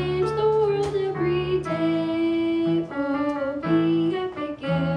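A girl singing a song solo into a microphone, with piano accompaniment.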